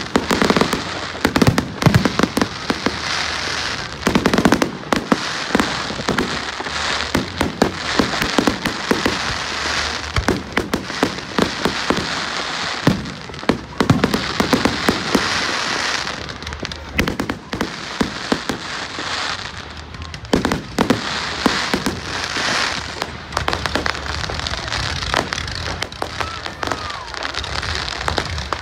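Fireworks display: a dense, continuous run of bangs and crackling reports, many a second, over a steady crackling hiss.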